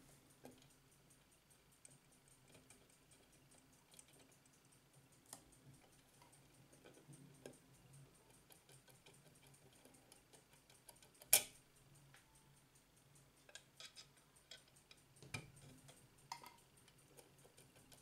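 Soviet navy ship's radio-room clock ticking fast and evenly from its platform escapement. A few sharp clicks from handling the hands at the centre arbor stand out, the loudest about eleven seconds in.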